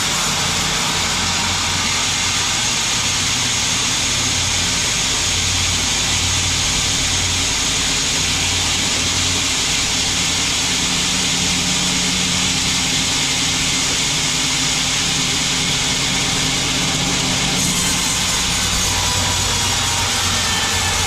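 Sawmill running steadily, sawing a log into boards: a low machine hum under a constant hiss of the cut.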